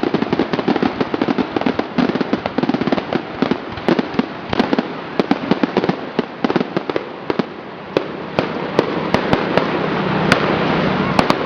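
Fireworks display: dense, rapid crackling of many small bursts, giving way about eight seconds in to a steadier rushing noise with scattered sharp cracks.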